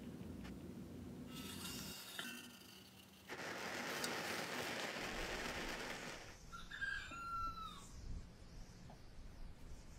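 Brass blowtorch burner lit, its flame hissing steadily for a few seconds. Near the end comes a short high-pitched call that glides in pitch.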